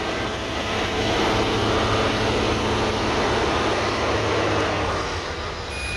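Diesel engines of road-building machinery running steadily: a Caterpillar motor grader close by and a truck moving across the site.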